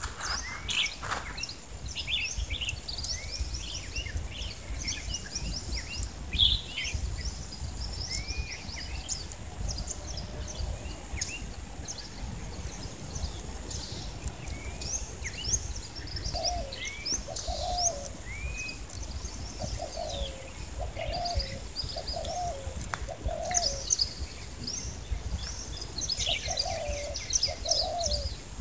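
Birds chirping and calling in many short rising and falling notes. Through the second half a dove coos in repeated short low phrases.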